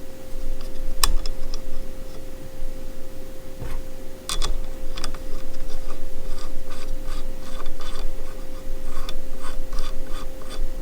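Hands fitting an accessory onto a Milwaukee M12 multi-tool: scattered clicks, scrapes and rubbing of metal and plastic parts, over a faint steady hum.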